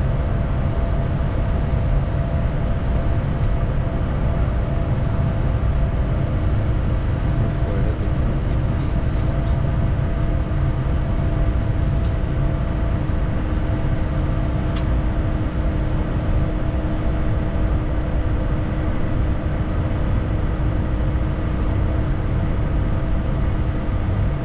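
Steady cockpit noise of a Bombardier Challenger 350 business jet on approach: a constant low rush of airflow and engines with a steady multi-tone hum.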